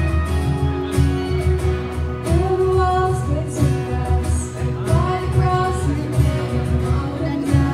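Live worship band playing a song: female voices singing over acoustic guitar, bass and a steady cajon beat, with the singing coming in about two seconds in.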